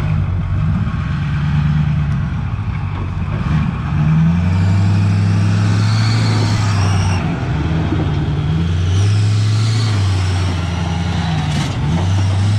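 Ford F-450's Power Stroke V8 diesel working under load as the truck crawls up a steep rock slab. The engine note rises in surges at about four, nine and twelve seconds and eases off between them.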